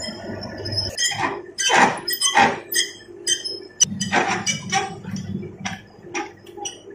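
Metal lathe running while a 12 mm twist drill in the tailstock drill chuck cuts into the end of a spinning mild steel bar: a steady low hum under a run of irregular sharp metallic clinks that ring briefly, loudest in the first half. This is the drilling of the hole that will form the keyway slot in the bush's bore.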